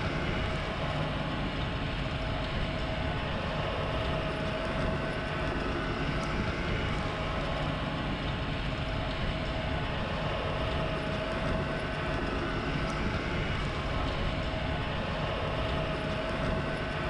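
Steady machine noise: a motor running evenly, with a constant whine over a low rumble.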